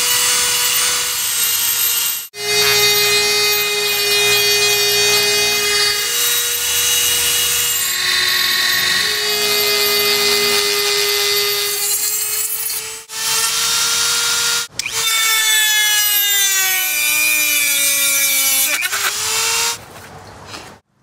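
High-speed rotary tool with a carbide sanding drum whining as it grinds into wood. Its pitch falls and rises again as it bites. The sound cuts off abruptly a few times.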